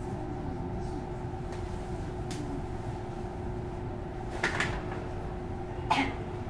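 Interior of a JR Kyushu 305-series electric train car standing at a station: the steady hum of the car's onboard equipment, with one steady tone in it. Two short knocks come about four and a half and six seconds in, with a fainter click earlier.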